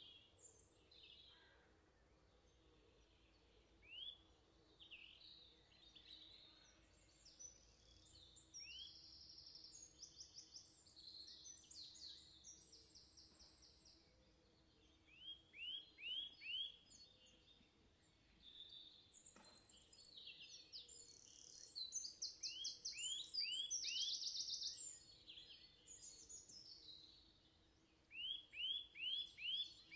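Small songbirds singing and calling: runs of quick, sharp chirps and fast high trills, busiest and loudest in the second half.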